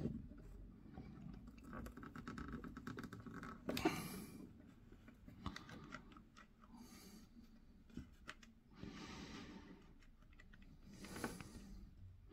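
Faint small clicks and rustles of fingers handling and pressing an N-gauge model railway turnout onto a cork roadbed. A few breaths are heard, with the sharpest burst about four seconds in.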